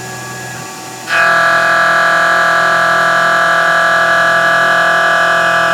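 Air compressor starting up about a second in and then running steadily: a loud hum with many steady tones. Before it kicks on, the quieter steady sound of the CNC mill running.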